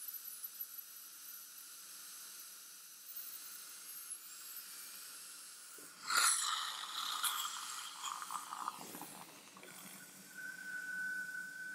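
High-speed dental handpiece with a diamond bur, its high thin whine over the hiss of water spray as it cuts the lingual shoulder margin of an incisor crown preparation. About six seconds in comes a louder burst of spray hiss and sputtering, and near the end a steady mid-pitched tone sets in.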